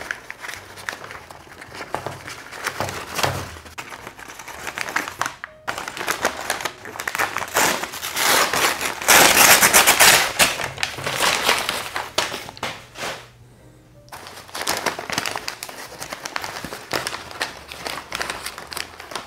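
Brown kraft paper wrapping crinkling and rustling as it is unwrapped and pulled off a potted plant, loudest about nine to ten seconds in.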